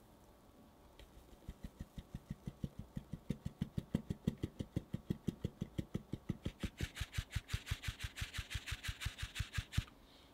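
Fine-mesh sieve being tapped and shaken quickly, about five or six light knocks a second, as cake flour sifts through into a glass jug. From about two-thirds through, the knocks turn brighter, with a rustle of flour through the mesh, and they stop just before the end.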